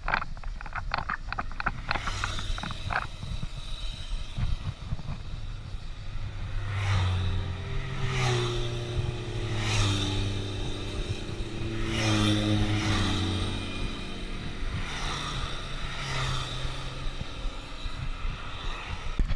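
Wind and road rumble from a bicycle ride on a paved road. From about a third of the way in, the engines of a motorcycle and a scooter go by, their pitch shifting as they pass and fading near the end.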